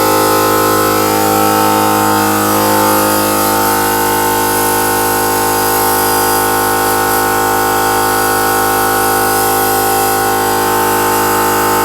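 Shop air compressor running with a steady hum that holds one even pitch, shifting slightly in the first few seconds.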